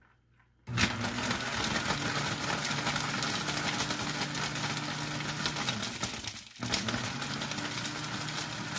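Countertop blender switched on under a second in, its motor running steadily as it blends a mixed drink. It stops briefly near the end and starts again.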